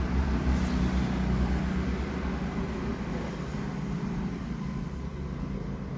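Steady low rumble with an even hiss of background noise, without any distinct event.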